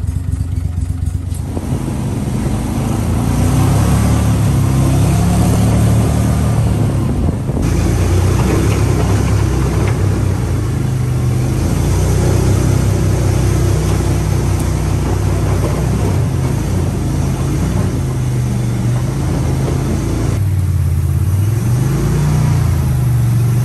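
Gator-Tail surface-drive mud motor running under way, pushing an aluminium skiff. The engine note climbs over the first few seconds as it speeds up, then near the end dips briefly and comes back up.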